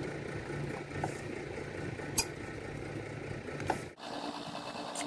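A steady low mechanical hum with a few light, sharp clicks. The hum cuts off abruptly near the end, and a different steady tone takes over.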